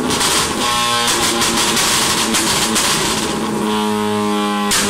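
Honda Civic Type R FD2's 2.0-litre inline-four (K20A) running hard on a chassis dyno through an aftermarket exhaust, with a raspy, guitar-like tone. Its pitch holds steady, then steps to a new level several times, with a brief break near the end.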